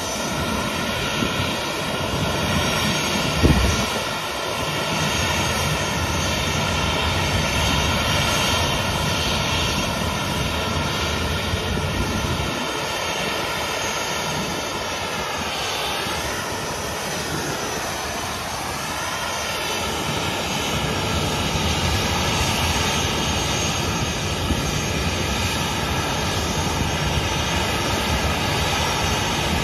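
Boeing 737 airliner's jet engines running at low taxi thrust while it rolls slowly on the runway: a steady whine with several tones over a rumble. The whine's pitch dips and recovers briefly just past the middle, and a short thump comes about three and a half seconds in.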